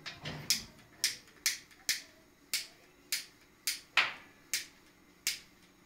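A run of sharp, short clicks, about two a second and slightly uneven in spacing.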